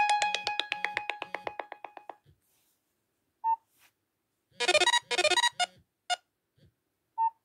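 A Android ringtone played on a Nokia phone's small speaker: a fast run of repeated electronic notes, about eight a second, that fades out over the first two seconds. After a gap come short single beeps and two brief bursts of notes near the middle.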